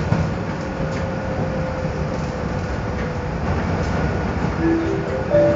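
Steady running rumble of a Rodalies commuter train heard from inside the carriage. Near the end, the first few notes of the train's electronic warning chime begin: the acoustic signal that comes before a stop announcement.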